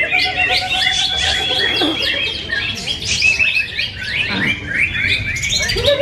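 Many caged songbirds, green leafbirds (cucak hijau) among them, singing at once in a dense chorus of overlapping chirps, trills and whistles, with one long steady whistle held from about a second in.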